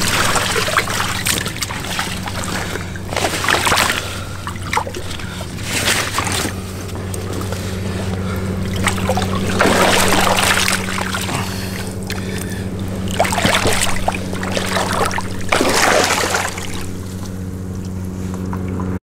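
A small boat's motor running steadily with a low hum, with irregular surges of water noise over it.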